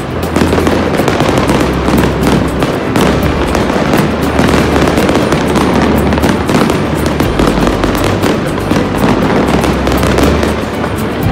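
Many fireworks and firecrackers going off at once: a continuous, dense crackle of rapid small bangs with no pause, and an aerial shell bursting overhead near the end.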